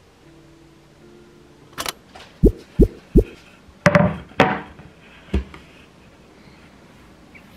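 Wooden cutting board set down and handled on a counter: three dull wooden knocks in quick succession, then a louder clatter and one last knock.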